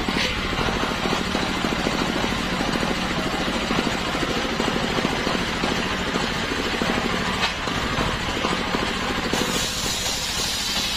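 Belt-driven table circular saw cutting through a sengon (albizia) log, over the steady, even running of the stationary engine that drives it. The cutting hiss grows brighter near the end as the blade takes a fresh cut.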